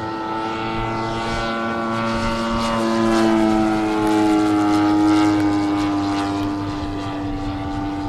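Propeller drone of a radio-controlled scale model Morane-Saulnier D-3801 flying past. It grows louder to a peak about halfway through, then the pitch drops slightly and the sound fades as the plane moves away.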